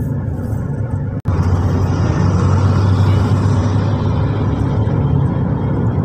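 Steady road noise inside a moving taxi: low engine and tyre rumble with a hiss of road and wind noise. The sound drops out for a split second about a second in, then carries on a little louder and hissier.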